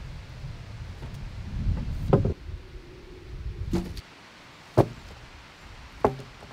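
Four sharp knocks, a second or more apart, each with a short hollow ring, over a low steady rumble that cuts off about four seconds in.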